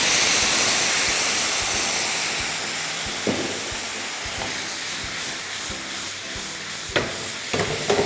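Water poured into a frying pan of browned chicken and vegetables over high heat, hissing and sizzling as it flashes to steam, the hiss loudest at first and slowly dying down. A few light knocks of the pan come in the second half.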